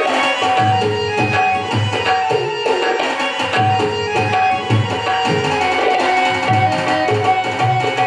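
Tabla playing a steady rhythm, its deep bass strokes recurring in an even pulse, under a held, sustained melody line in a devotional bhajan accompaniment.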